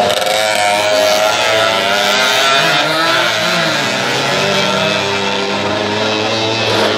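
Two racing motorcycles' engines revving hard as they climb past, their pitches rising and falling with each gear and throttle change.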